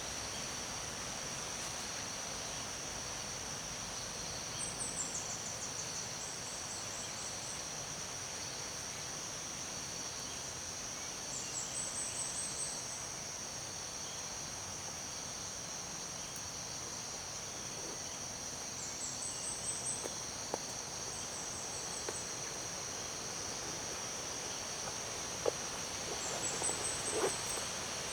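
Tropical rainforest ambience: a steady, high-pitched drone of insects, with a short run of quick, high chirps coming back about every seven seconds, four times in all. A few soft clicks sound near the end.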